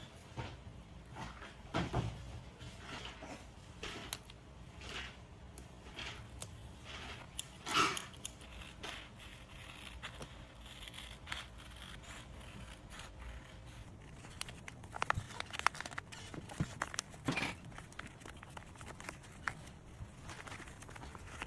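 Paper being handled while a paper squishy is made: irregular rustling, scraping and crinkling, with louder rustles about two and eight seconds in and a quick run of clicks and crackles about two-thirds of the way through.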